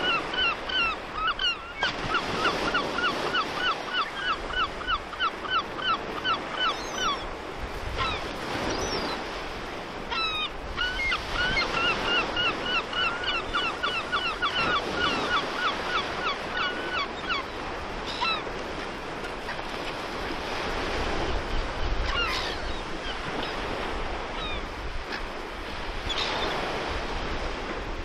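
Gulls calling in long runs of repeated yelping notes, about three a second, over steady surf and wind. The calls come in two long runs and die out after about seventeen seconds, leaving only the waves.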